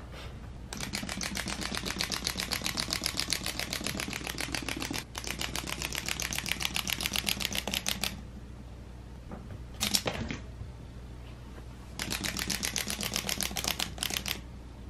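Small hopping Easter bunny toy's mechanism clicking rapidly as it hops across a hardwood floor, in long runs with pauses, and one louder knock in a pause about two thirds of the way through.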